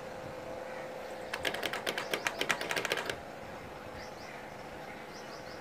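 A quick, even run of sharp mechanical clicks, about ten a second, lasting nearly two seconds and starting just over a second in, over a steady faint hum.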